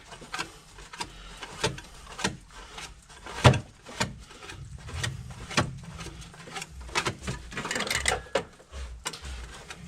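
Scattered clicks, clinks and knocks of tools and parts being handled during engine work, one sharper knock about three and a half seconds in.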